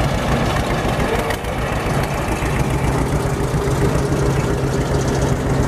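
Antique John Deere two-cylinder tractor engine running steadily at low speed as the tractor drives past, with a second John Deere tractor following.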